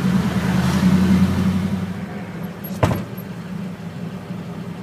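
Restored vintage pickup truck's engine running on the move, heard from inside the cab: a steady low drone that eases off after about a second and a half. A single sharp knock sounds about three seconds in.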